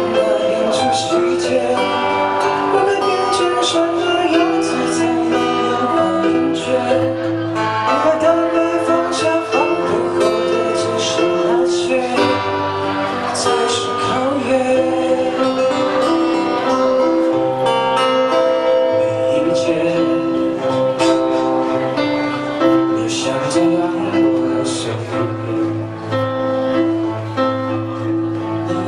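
Live amplified pop band playing a song: a male singer over keyboard chords and electric guitar, with a steady moving bass line, heard through PA speakers.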